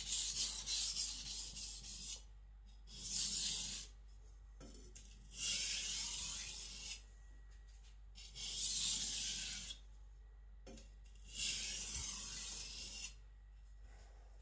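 Blue-steel gyuto edge stroked lightly across a wet 400-grit Naniwa Professional whetstone, a gritty scraping hiss: a few quick short strokes at first, then four slower separate passes with pauses between. These are light deburring passes that even out the edge after a strong burr was raised.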